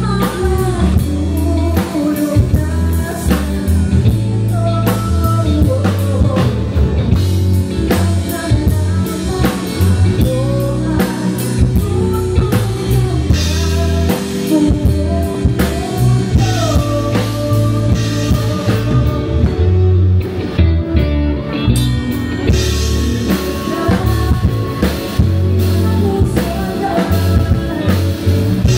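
Live rock band playing amplified through a PA, with a woman singing lead over electric guitars and a drum kit.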